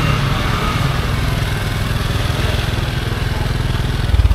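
A small motorbike engine running close by, with a steady low pulsing. It gets louder briefly near the end.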